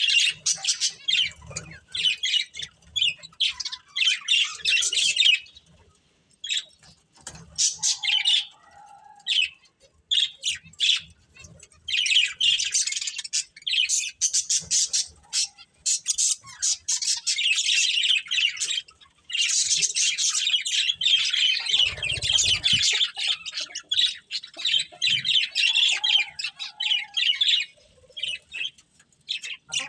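A pair of budgerigars chattering and chirping in long bouts of rapid, high, scratchy warbling, broken by a few short pauses.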